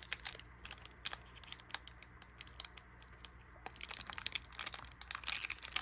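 Foil Pokémon booster pack wrapper being handled: scattered light clicks and crinkles at first, then, about four seconds in, denser crinkling and tearing as the pack is torn open.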